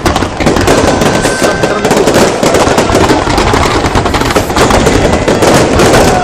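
Fireworks display: a loud, continuous barrage of rapid, overlapping bangs and crackles with no pause.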